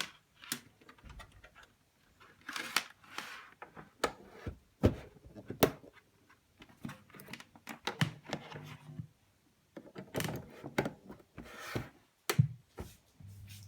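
Handling sounds of unpacking: irregular clicks, knocks and short rustles, as of a box, packing and a small plastic device being handled.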